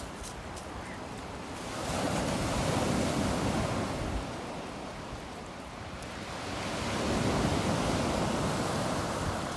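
Stormy Black Sea surf breaking on the shore, the rush of water swelling twice, about five seconds apart, as two waves come in.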